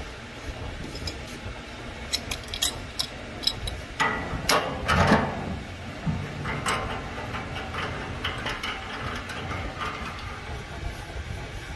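Chrome faucet parts being handled and fitted together as the swing spout is pushed into the wall-mount faucet body. A run of small metallic clicks starts about two seconds in, a louder clatter and scrape follows around four to five seconds, and a few more clicks come later, over a steady low hum.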